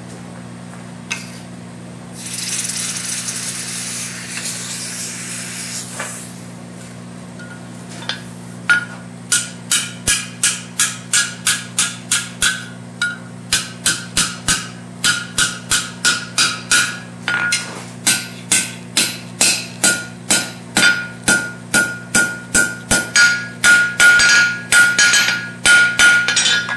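Hand hammer striking a hot 3/8-inch round steel bar on an anvil, about two blows a second from about nine seconds in, each blow setting the anvil ringing: the handle of a fire poker being bent over the horn and its loop closed on the face. Earlier, a few seconds of hiss, with a steady low hum underneath throughout.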